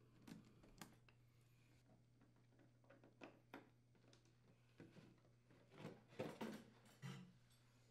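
Faint handling noises as a refrigerator's lower rear access panel is unscrewed and pulled free: a few light clicks of a nut driver, then a cluster of soft knocks and scrapes about six seconds in as the panel comes away, over a faint steady hum.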